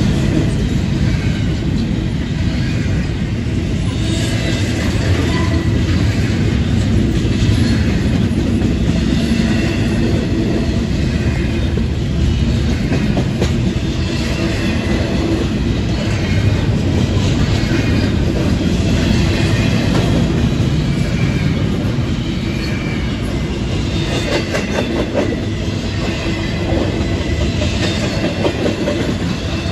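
Double-stack container freight cars rolling past close by: a steady rumble of steel wheels on the rail with clickety-clack over the joints and short high squeals now and then, easing slightly near the end as the train's tail approaches.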